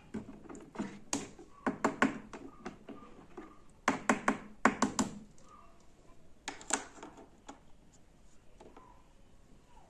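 Small plastic toy pieces being handled, giving irregular light clicks and taps in three short clusters, the busiest about four to five seconds in, then a few scattered ticks.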